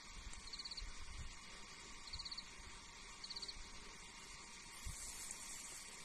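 Faint insect chirping: three short, high, rapidly pulsed chirps a second or more apart over a low outdoor hiss, with a few soft low thumps.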